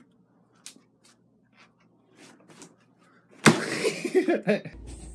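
A sudden thump about three and a half seconds in as a puppy falls off a bed into a plastic laundry basket. It is followed by about a second of short voice sounds. Before the fall there are only a few faint taps.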